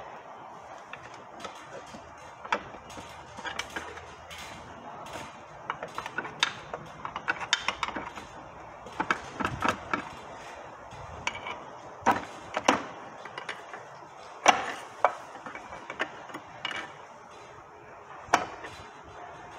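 Steel pry bar working at the seam between a Honda six-speed transmission case and its bell housing: a run of irregular metallic clicks and knocks as the case, held by sealant, is pried loose. The loudest knock comes about three-quarters of the way through.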